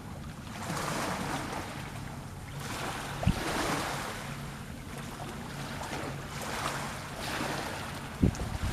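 Wind buffeting the microphone over sea waves washing in swells, with a faint steady low hum underneath. Sharp thumps come about three seconds in and again near the end.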